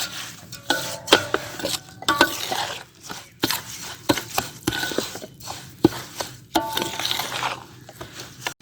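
A spoon stirring and scraping a spice-and-oil pickle masala (fennel, fenugreek, nigella seeds, turmeric, chilli, salt) in a large vessel. It makes irregular scrapes and clinks against the sides, some with a short ringing tone.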